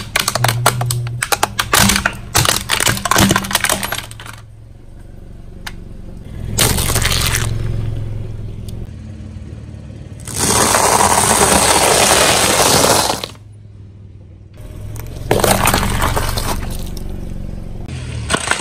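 Car tyre rolling over and crushing a plastic toy truck: a dense run of sharp plastic cracks and snaps for the first four seconds. Later the tyre crushes a row of coiled noodle bundles, a long loud crunching lasting about three seconds.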